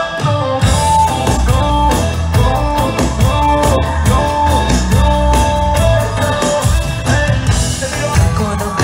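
Live band music through a concert sound system: bass guitar and keyboard over a steady beat.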